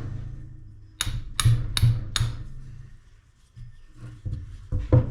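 Metal-on-metal clinks as tools and bolts are handled on a four-jaw lathe chuck: four sharp clinks about 0.4 s apart, then a few softer knocks near the end.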